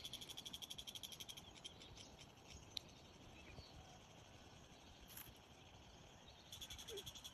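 A faint, fast-pulsing high-pitched trill from a chorus of calling animals. It stops about a second and a half in and comes back near the end, leaving faint hiss with a few small clicks in between.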